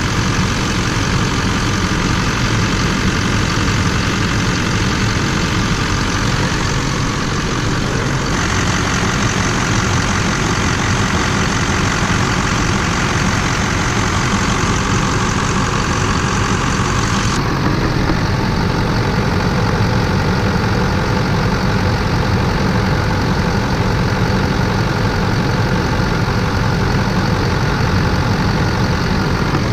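Pickup truck engine idling steadily; the sound changes character twice, about 8 and 17 seconds in.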